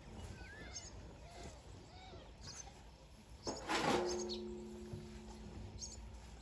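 Small birds chirping. About three and a half seconds in comes a loud rushing burst, followed by a steady low tone that holds for about two seconds.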